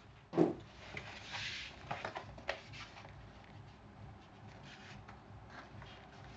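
Handling of a keyboard's packaging during unboxing: a sharp knock about half a second in, then a second or so of rubbing and rustling with a few clicks, settling into faint handling noises.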